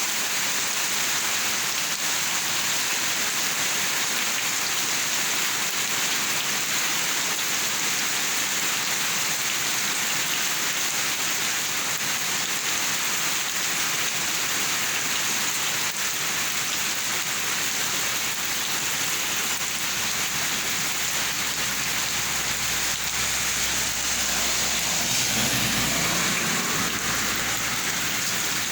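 Heavy rain falling steadily, a dense even hiss. A low rumble swells near the end.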